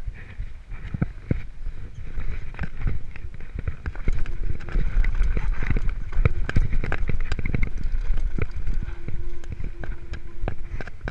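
Mountain bike rolling fast over a rough dirt and stone trail: the tyres on loose rock and the frame and chain rattling in a dense run of small knocks, getting louder from about four seconds in.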